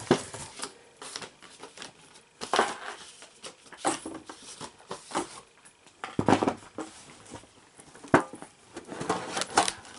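Handling noise of a small metal tin box being unpacked: a cardboard sleeve rustling and scraping as it slides off, with scattered light knocks and clicks of the tin as it is turned and its lid taken off, the sharpest click near the end.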